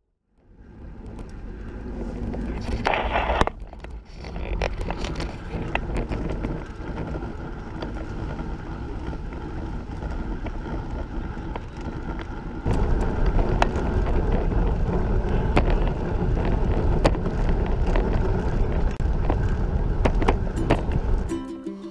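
Recumbent trike rolling over a concrete path: tyre-on-pavement rumble with frequent sharp clicks and rattles, growing louder about halfway through.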